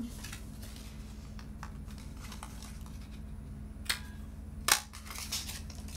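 Cardstock rustling in the hands, then a light click followed under a second later by a sharper, louder click as a handheld pumpkin punch is squeezed through the cardstock to cut a stem.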